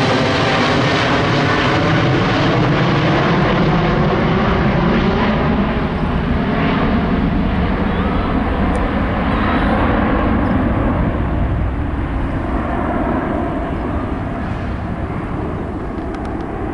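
Boeing 777-300ER's twin GE90 turbofans at departure power passing overhead and climbing away: a loud, steady jet roar with tones that slowly fall in pitch, growing quieter and duller over the last several seconds.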